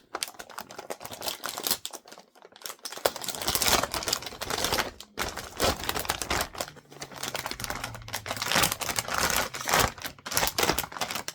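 A graphics card's cardboard box and plastic packaging being opened and handled: irregular rustling, crinkling and clicking.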